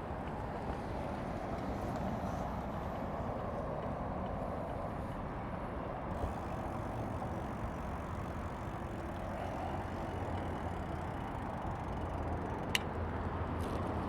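Steady wash of road traffic noise, with a single sharp click near the end.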